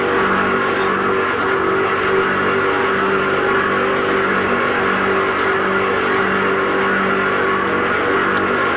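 Loud, steady mechanical drone: a dense hiss over a low hum that pulses in a slow, even rhythm.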